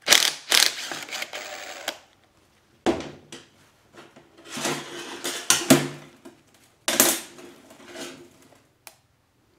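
Cordless power driver undoing the selector-shaft detent plugs in a Toyota E154F gearbox case, in four bursts of motor whir and rattle: a long one at the start, a short one about three seconds in, then two more.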